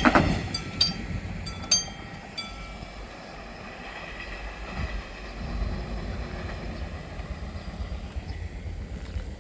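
Tail end of a Mugunghwa passenger train passing over a level crossing, the wheel noise dropping away within the first second. The crossing's warning bell strikes a few more times and stops about two and a half seconds in, leaving a low rumble as the train recedes.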